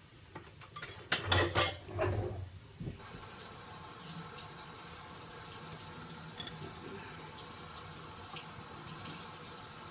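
A few knocks of kitchenware being handled, then a kitchen tap turned on about three seconds in and running steadily to measure water for a recipe.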